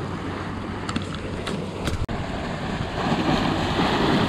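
Small ocean waves washing and splashing against the boulders of a rock jetty, the surf swelling louder about three seconds in.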